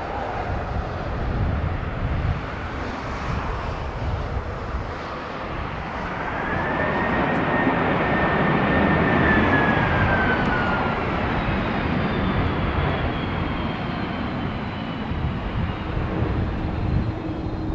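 Jet airliner passing low overhead on its landing approach: a steady engine roar that swells to its loudest about halfway through, with a high engine whine that drops in pitch as the plane goes past.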